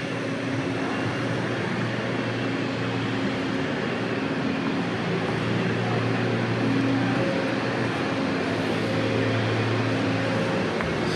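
A steady mechanical drone with a rushing noise; its low hum tones hold for a second or two and then shift in pitch.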